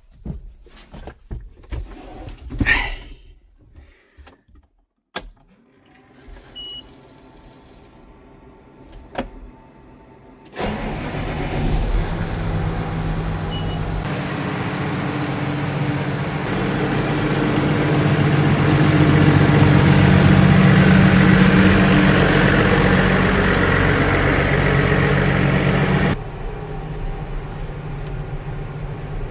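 Scattered knocks and clicks of handling, then about ten seconds in a machine motor starts abruptly and runs steadily, growing louder in the middle and dropping to a lower level near the end.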